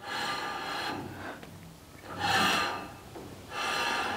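Slotted and dimpled brake rotor turned by hand, its outer face rubbing against the pads of the small cable-operated handbrake caliper in three rasping passes of about a second each. The scraping is the sign that the handbrake caliper sits slightly out of line with the rotor and might need a very fine adjustment.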